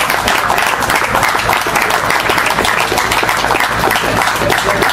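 Crowd applauding: dense, steady clapping of many hands.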